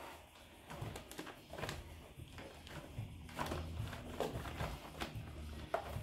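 Hands working a mountain bike tire's bead onto the rim: irregular soft knocks, clicks and rubbing of rubber against the rim.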